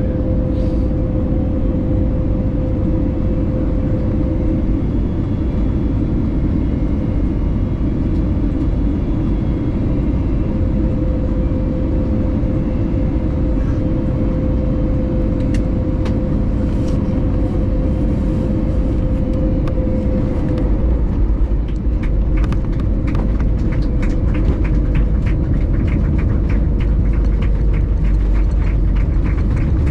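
Steady low rumble of a vehicle in motion, heard from inside, with a faint steady hum. About two-thirds of the way in, the rumble grows and a rapid series of regular knocks sets in and carries on.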